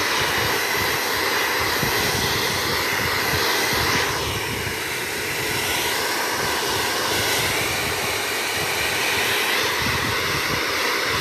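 Handheld blow dryer blowing steadily on a dog's wet coat after its bath. Its motor note dips about four seconds in and slowly comes back up.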